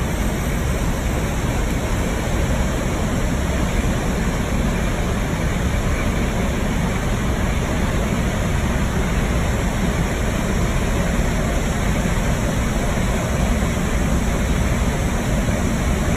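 Steady, loud rush of wind and engine noise inside a military cargo aircraft's hold with the rear ramp open in flight.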